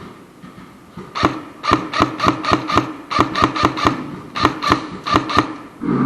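Airsoft guns firing a rapid string of sharp single shots, about six a second, in three short runs with brief breaks between them.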